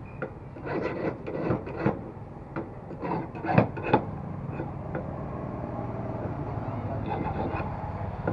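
Small hand file scraping across a small metal part, with sharp clicks and knocks of the part and tools being handled in the first half, then steadier filing strokes.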